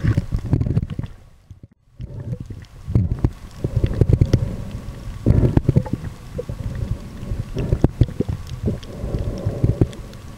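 Muffled sloshing and rumbling of water against a compact camera sealed in a soft plastic underwater bag just below the surface, with scattered clicks. The rumble drops away briefly about a second and a half in, then returns.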